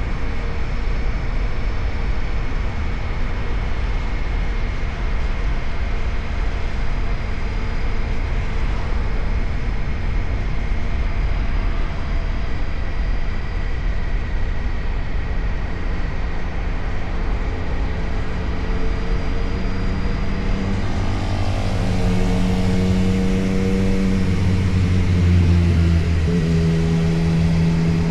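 2025 Indian Scout Sixty's V-twin running over a steady low rumble, with a thin, steady high-pitched whine above it; about twenty seconds in the engine note rises and then holds. The owner takes the sharp whine for a severe abnormal noise that has been getting worse.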